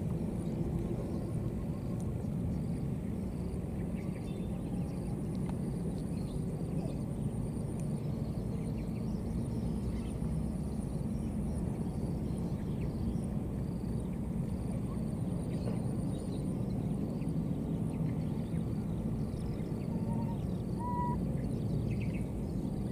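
Outdoor ambience: a steady low rumble with a faint high hiss above it, and a few brief faint chirps near the end.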